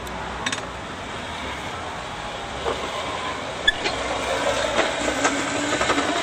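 Metal brake hardware being handled over a steady background hiss. There are light clicks and one bright metallic clink about halfway through, with more small clatter near the end.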